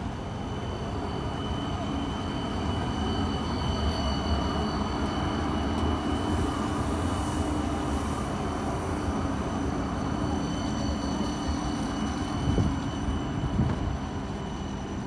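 CAF Urbos 100 light-rail tram passing close by on curved track: a steady low rumble with a steady high-pitched whine over it, growing louder through the middle as it goes by, with two short thumps near the end.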